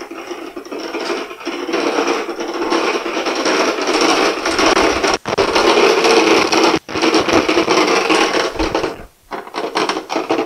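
Casters of a low wheeled dolly carrying a Triumph TR4 engine rolling over a concrete floor: a steady, rough rolling noise that cuts out for a moment twice.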